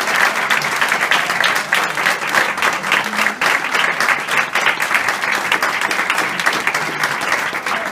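Audience applauding: many people clapping steadily, a dense patter of claps.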